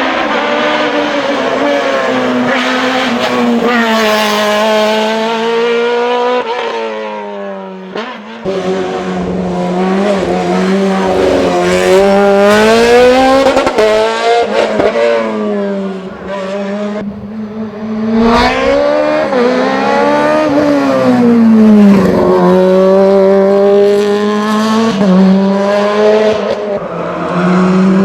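Osella PA 21 S Evo sports prototype's Honda racing engine at high revs, its pitch climbing through each gear and dropping sharply at the shifts and lifts, with several longer falls into slower stretches.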